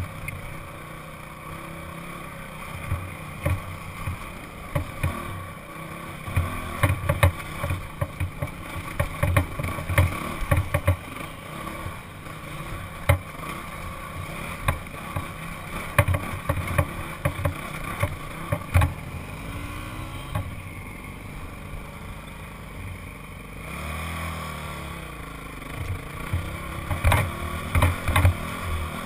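Honda CRF four-stroke single-cylinder dirt bike engine running as the bike rides over rough rock, with frequent knocks and thumps. The engine eases off for a few seconds about two-thirds of the way in, then revs up again.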